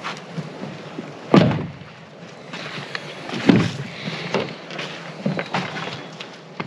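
Ford F-150 pickup doors shutting: two solid thuds about two seconds apart, with clicks of handles and latches in between.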